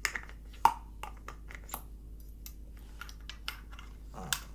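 Irregular sharp clicks and light knocks of small hard objects being handled, with one louder knock about two-thirds of a second in.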